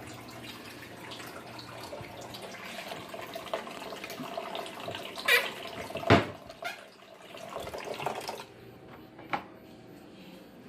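Water running from a kitchen tap, stopping shortly before the end, with two sharp knocks a little past halfway, the second the loudest.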